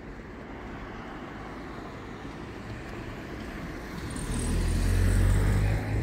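Street traffic noise, then a car passing close by: its tyre and engine noise swells from about four seconds in, peaks, and drops off sharply near the end.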